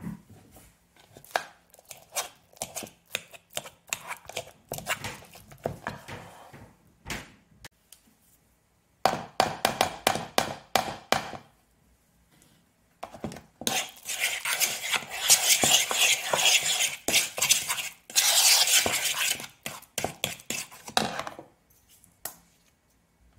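A metal fork mashing avocado in a bowl: rapid taps and scrapes of the fork against the bowl. They are softer at first, then come in two louder spells of fast mashing and stirring in the second half, as yoghurt is worked into the mash.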